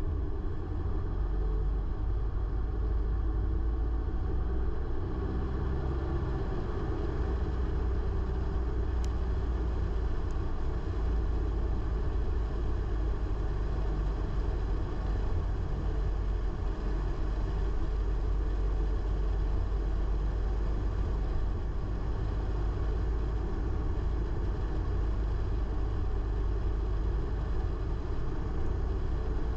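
Car driving at a steady pace: an even, low rumble of engine and road noise.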